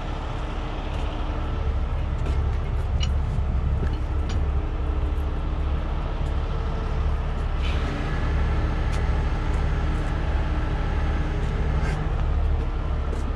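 Heavy diesel truck engine idling with a steady low rumble, with a few light clicks scattered over it.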